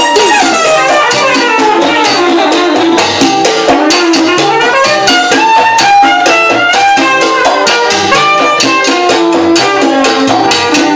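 Live salsa orchestra playing: a trumpet line over piano, bass and drum kit with cymbals, opening with a fast run that falls in pitch, over a steady, busy percussion beat.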